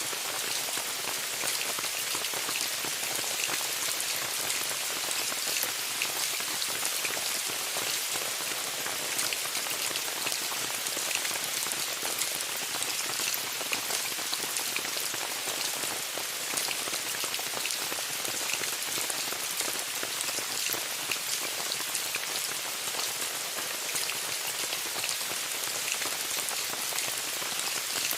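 Steady rain falling on a tent, a dense even hiss dotted with many sharp taps of single drops striking the fabric.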